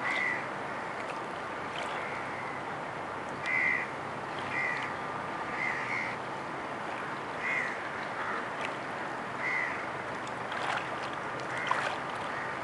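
Short bird calls, about seven of them, one every second or two, over a steady background hiss. Near the end comes water splashing as a white domestic duck dips its head into the pond.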